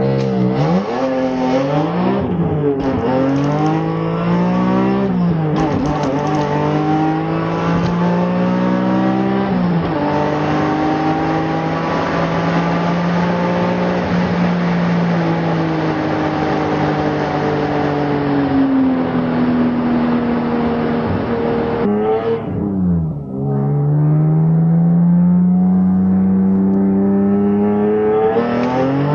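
BMW E46 M3's S54 straight-six with a Gruppe M titanium exhaust, accelerating hard through the gears of its manual gearbox: the engine note climbs steeply and drops at each upshift, three times in the first ten seconds. It then holds fairly steady, falls away, dips briefly and climbs again near the end.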